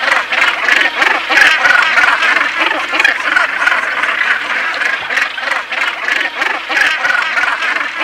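Northern gannet colony: many gannets calling at once, a dense din of overlapping short calls with no break.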